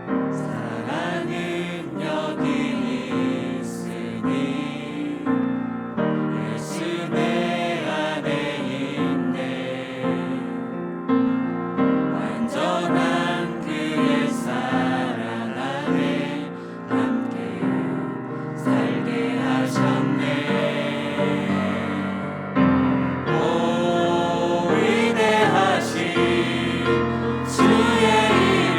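Church choir singing a worship anthem in Korean, with keyboard accompaniment under the voices.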